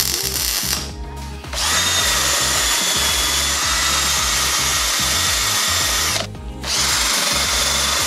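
Cordless drill spinning a small sanding disc against a steel frame tube: a steady high whine that starts about a second and a half in, stops briefly near the six-second mark and starts again.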